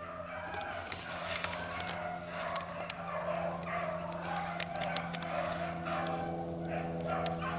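Beagles baying as they run a rabbit, several drawn-out voices overlapping without a break, over a steady low hum.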